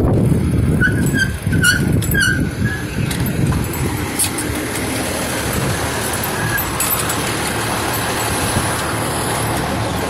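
Fire engine's diesel engine running close by, a low rumble with a few short high squeaks about one to three seconds in. After that, a steady rushing street noise as the bicycle moves off.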